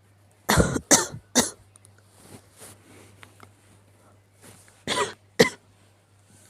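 A sick person coughing: a quick bout of three harsh coughs about half a second in, softer breaths, then two more coughs near the end.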